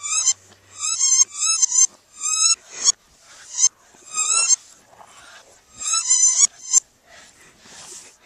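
A dog's squeaky toy squeaking in a quick string of short, high squeaks, about nine, as two Boston terriers tug at it. The squeaks give way to fainter scuffling near the end.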